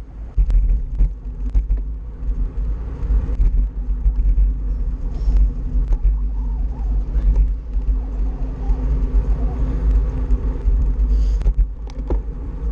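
Wind buffeting the microphone of a handlebar-mounted action camera on a moving bicycle, a heavy, uneven rumble mixed with tyre and road noise and a few small knocks from bumps in the pavement.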